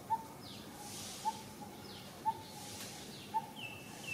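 Birds calling: one repeats a short, low note about once a second, while higher falling notes come every second or so, and a steady high whistle starts near the end.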